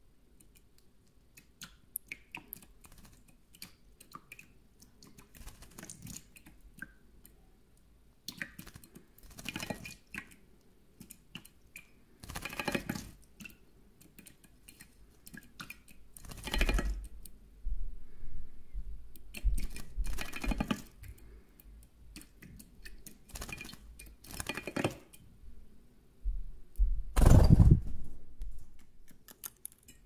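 European goldfinch bathing in a shallow stainless-steel dish: several short bursts of splashing as it flutters and dips in the water, the loudest a little before the end, with small clicks and drips on the metal between them.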